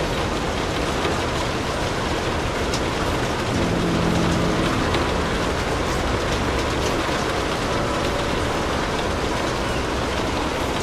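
Steady, even rain noise. Around the middle, a low humming tone rises out of it briefly, then fades back into the rain.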